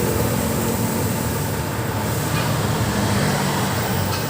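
Steady mechanical running noise: a low rumble with a hiss over it, unbroken throughout.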